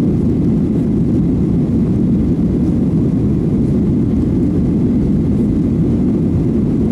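Steady low roar inside the cabin of a Boeing 737-900ER in flight: the CFM56-7B turbofan engines and air rushing past the fuselage.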